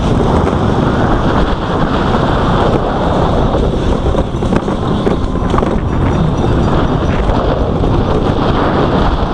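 Loud wind rushing over the microphone and the rumble of a Bolt roller coaster car running fast along its track at full throttle.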